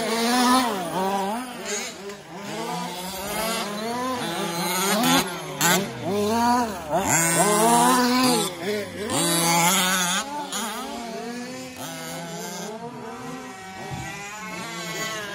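Engines of 1/5-scale 4WD RC racing trucks revving up and down again and again as they race past on a dirt track, several at once. They are loudest in the middle and die down somewhat near the end as the trucks move off.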